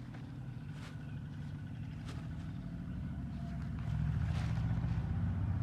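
A low engine rumble that grows steadily louder, with a few faint clicks over it.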